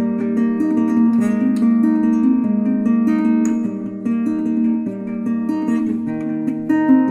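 Background music: an acoustic guitar instrumental with plucked and strummed notes.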